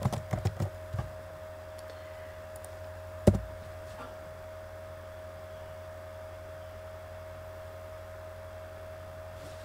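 Computer keyboard keys clicking for about the first second, then one louder sharp knock about three seconds in. A steady electrical hum with a faint high tone runs underneath throughout.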